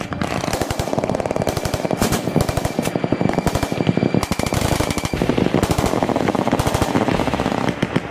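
Sustained automatic machine-gun fire, the rapid shots running together, that stops shortly before the end.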